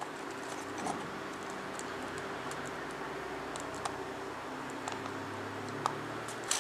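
Solder and flux melting under a soldering iron on the steel back of a guitar tone potentiometer: a few faint, scattered ticks and crackles, the sharpest near the end, over a steady background hiss and low hum.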